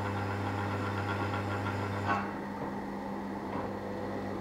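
Drill press spinning a 3/4 reamer in the bore of a brass pressure-washer valve block, cutting away what is left of a broken steel banjo fitting, with a steady motor hum under a rough cutting noise. About two seconds in there is a brief knock and the cutting noise drops away as the reamer comes out of the bore, while the motor keeps running.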